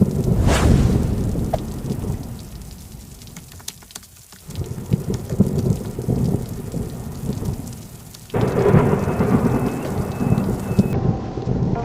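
Thunder rumbling over steady rain, in three rolls: one at the start that fades over a few seconds, one building about four seconds in, and one that starts suddenly about eight seconds in.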